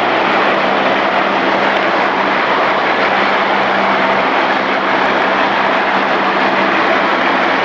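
Ore-processing plant machinery running, a loud, steady industrial noise with a constant low hum underneath.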